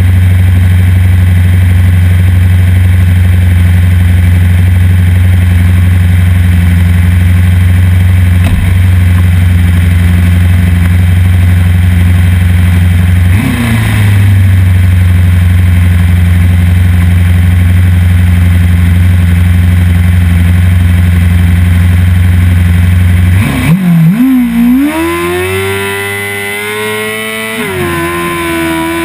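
Suzuki GSX-R600 sportbike's inline-four engine held at steady revs while the bike waits for the race start, with a brief dip about halfway. About 24 seconds in it revs up and the bike pulls away, the pitch climbing, dropping once at a gear change and climbing again.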